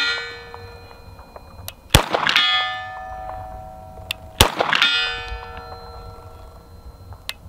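Two shots from an H&K USP Expert pistol about two and a half seconds apart, each followed about half a second later by the ringing clang of a steel target hit at 100 yards. Each ring lingers and fades over a couple of seconds.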